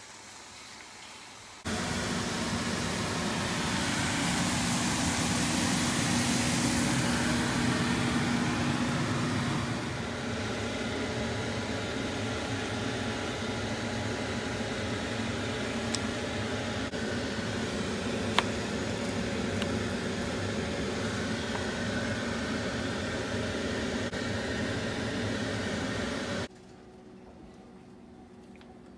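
Steady whirring machine noise with a low hum, like a kitchen fan or appliance motor. It starts abruptly about two seconds in, drops slightly about ten seconds in, and cuts off abruptly shortly before the end, with one sharp click about two-thirds of the way through.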